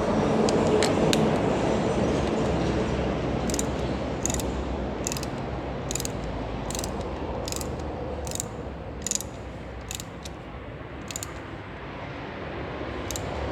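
Hand ratchet wrench clicking in short strokes, about a dozen times at roughly one a second, as the crankshaft pulley bolt is turned to pull the new front crankshaft oil seal home. Under it runs a steady background rush that fades over the first several seconds.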